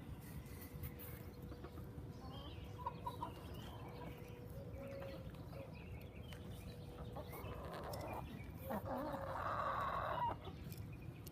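Backyard chickens clucking, with a longer, louder call lasting about a second and a half near the end.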